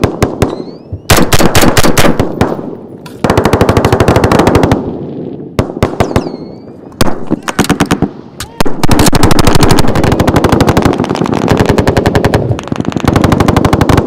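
Automatic gunfire in a firefight: rapid bursts from infantry machine guns and rifles, one after another with short gaps, the longest running for a few seconds just past the middle.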